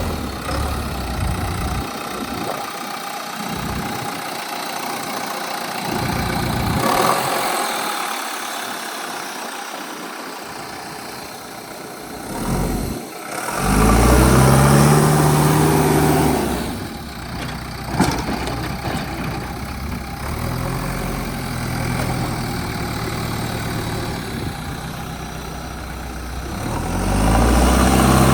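JCB 3DX backhoe loader's diesel engine running, rising to a hard rev about halfway through and again near the end, with a single sharp knock in between.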